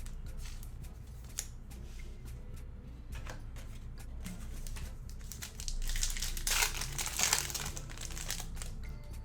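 Panini Select basketball card pack wrapper being torn open and crinkled, loudest in a dense crackling stretch about six to eight seconds in, with light clicks of cards being handled before it.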